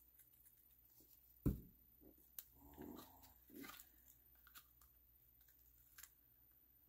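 Faint handling sounds on a craft table: one sharp knock about one and a half seconds in as a plastic glue bottle is set down, then soft rustling and small taps of cardstock being positioned and pressed down.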